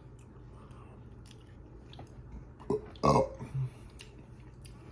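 A man burping briefly about three seconds in, with a smaller burp-like sound just after, over faint scattered clicks.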